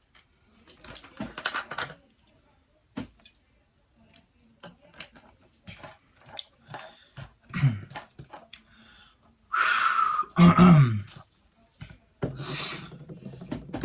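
A man's non-word breathing and vocal sounds: two loud, rushing exhales, the first about two-thirds of the way in and the second near the end, with a low falling sigh or groan in the middle and small clicks and shuffles between them.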